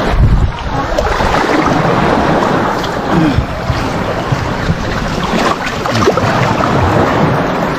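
Water splashing and fish thrashing as a gill net heavy with catch is hauled and shaken beside an outrigger boat, with wind buffeting the microphone.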